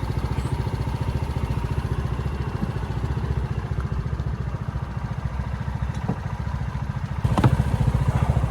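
ATV engine idling with a steady, fast low putter, and a brief louder knock near the end.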